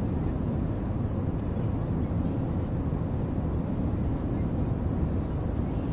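Steady in-cabin noise of an Airbus A319 climbing out after takeoff: an even, low rumble of engines and airflow.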